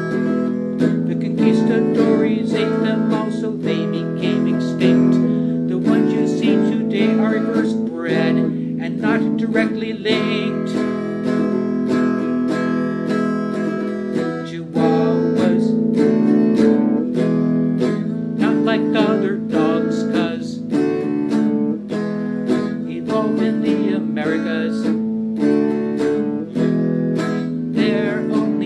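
Electric guitar strummed in a steady rhythm on held chords, with a man singing over it in places.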